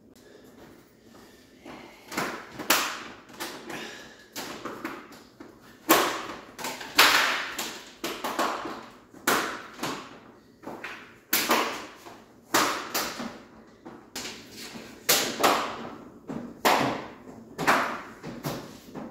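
Swisstrax interlocking polypropylene garage floor tiles being snapped together and set down on concrete. A string of sharp clacks and knocks comes about two a second after a quieter first couple of seconds.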